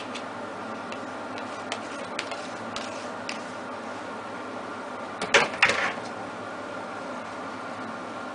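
Small taps and clicks as diced aubergine cubes are tipped and pushed out of a plastic colander onto a cloth kitchen towel, then a louder clatter of about a second, a little after five seconds in, as the colander goes down into a steel sink. A steady hum runs underneath.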